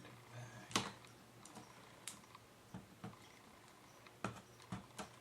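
Scattered light clicks and taps, irregular, of a laptop's replacement LCD screen and plastic lid being handled as the screen is set back in place.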